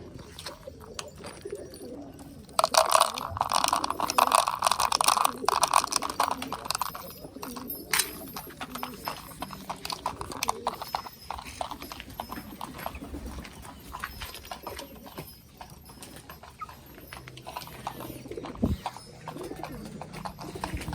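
Domestic pigeons: many sharp tapping and clicking sounds, with a dense, louder clatter lasting about three seconds near the start, under low cooing.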